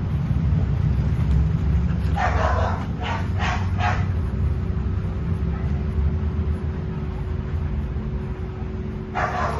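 A dog barking at an approaching man while guarding a bag: a burst of about four barks a couple of seconds in, then another quick run of barks starting near the end. A steady low rumble runs underneath.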